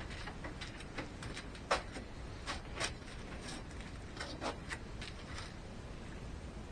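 Light clicks and knocks of objects being handled and set down on a workbench, with a sharper knock a little under two seconds in.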